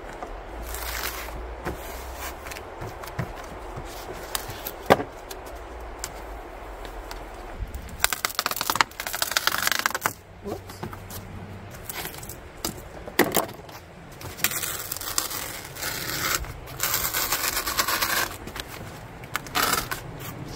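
Black Gorilla tape being pulled off the roll in several ripping stretches of a second or two, and pressed and smoothed onto foam, with a few sharp knocks from handling the pieces on the tailgate.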